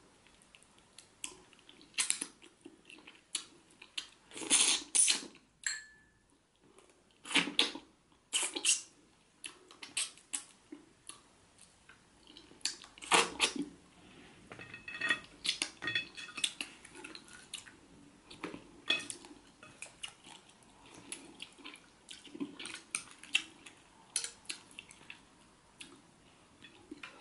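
Close-miked eating sounds from catfish head in pepper soup eaten by hand: irregular wet smacks, sucking and chewing clicks as the fish pieces and bones are sucked clean, with a few louder bursts of smacking.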